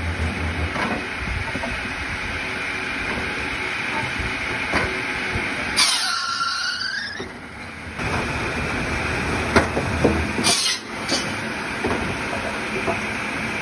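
An electric wood chipper runs steadily while a green log is fed into it and cut. About six seconds in there is a brief high squeal that falls steeply in pitch, and a few sharp knocks come near the tenth to eleventh second.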